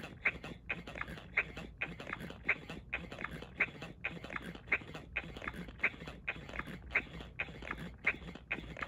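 Galoob Baby Talk talking doll playing its bottle-feeding sucking sound through its small built-in speaker: a steady run of short, rhythmic sucking noises, about three a second.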